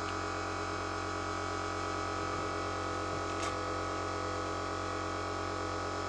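Steady electrical hum, unchanging throughout, with one faint click about three and a half seconds in.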